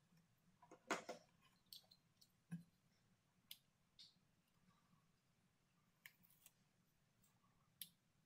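Faint, scattered clicks and small taps from working a snap-off utility knife and a roll of tape against a wooden board, the loudest about a second in.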